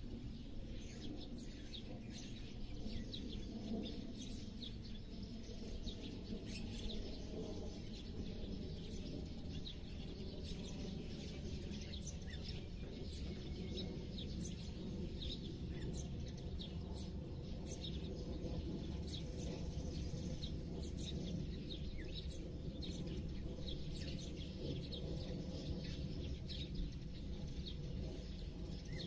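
Many small birds chirping and calling continuously in quick short notes, over a steady low rumble of background noise.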